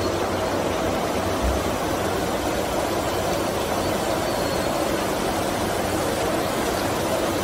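Steady hum and hiss of a running stainless-steel wire annealing line's machinery, with a brief low thump about a second and a half in.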